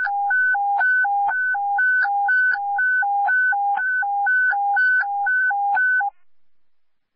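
Dispatch radio alert tone received over a scanner: two pitches alternating high-low, about four changes a second, for about six seconds before cutting off. This hi-lo warble is an attention tone sent ahead of a priority dispatch.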